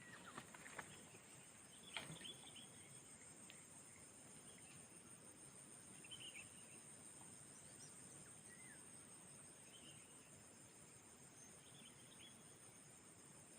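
Faint, steady high-pitched trilling of an insect chorus, with a few short faint chirps over it and a small click about two seconds in.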